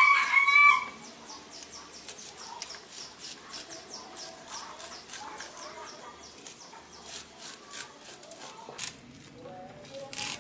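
Knife blade shaving kernels off a sweet corn cob onto a wooden cutting board: a run of quick scraping taps, several a second. A short, loud bird call sounds in the first second.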